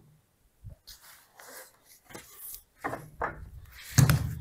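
Wooden cabinet panels being handled on a workbench: a series of short knocks and scrapes of wood on wood, with the loudest thump about four seconds in.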